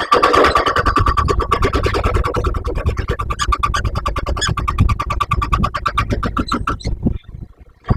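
Jackhammer hammering in a fast, even run of blows with a ringing tone over them, starting abruptly and stopping about seven seconds in.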